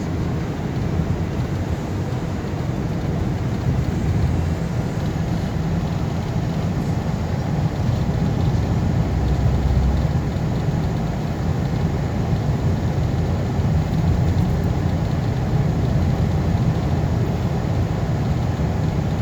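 Vehicle driving steadily, its engine and road noise making an even low rumble heard from inside the cabin.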